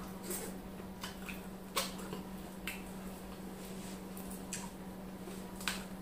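Eating by hand: sharp wet clicks and smacks of mouth and fingers while chewing semolina swallow with sticky ogbono soup, a handful of separate clicks spread over the seconds, over a steady low hum.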